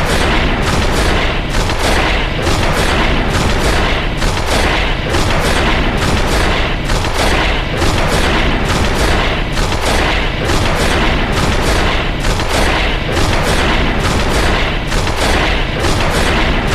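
Loud background music with a fast, steady beat of heavy percussive hits.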